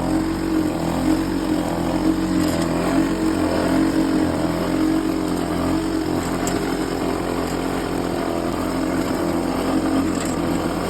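Vintage Lawn-Boy two-stroke single-cylinder mower engine running continuously while cutting grass. Its pitch dips and recovers slightly through the first half, then holds steadier.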